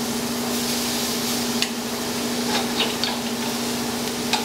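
Marinated chicken sizzling on a char-grill, a steady hiss over a low steady hum, with a few sharp metal clicks of tongs against the grill grate as pieces are turned, several of them in the second half.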